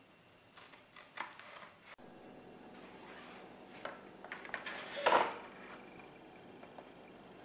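Workbench handling noises from foam model-aircraft parts and hobby tools: scattered light clicks, taps and scrapes, the loudest a short scrape about five seconds in.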